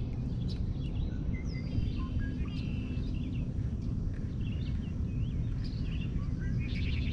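Several birds chirping with short, quick calls that bend up and down, scattered across the whole stretch, over a steady low rumble.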